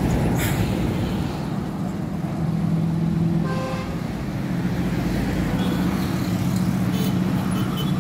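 Road traffic passing close by: a heavy truck's engine and tyres go by at the start, followed by the steady engine rumble of passing vehicles. A short horn toot sounds about three and a half seconds in.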